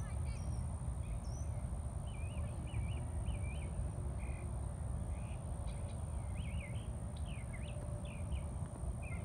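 Wild birds calling, a string of short wavering chirps repeated through the whole stretch, over a steady low rumble and a constant thin high-pitched tone.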